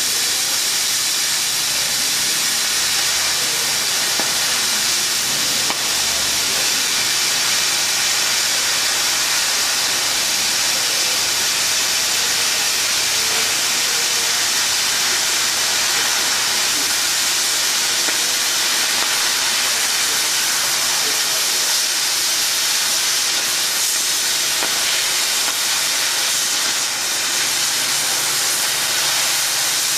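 Cutting torch of a CNC H-beam coping machine hissing steadily as it cuts through a steel H-beam.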